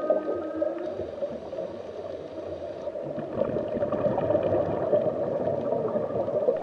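Underwater ambience: a steady rushing, bubbling wash of water. The tail of a whale's call, a pitched moan with overtones, ends within the first second.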